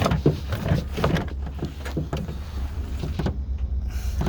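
Irregular clicks and knocks from handling car door trim pieces, over a steady low hum.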